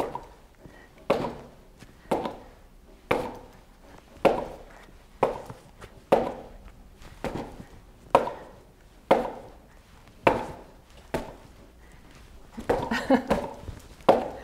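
Boxing-gloved punches landing on the sensor pads of a LifeSpan Cycle Boxer's punching panel, about one a second, with a quick flurry of several hits near the end.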